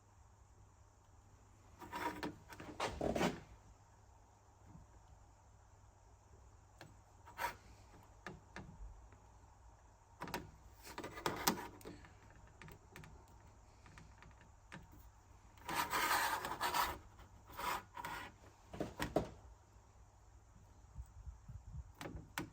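Hands working on a small part: irregular rubbing and scraping bursts with a few sharp clicks, the loudest stretches about two seconds in, near the middle and around two thirds of the way through.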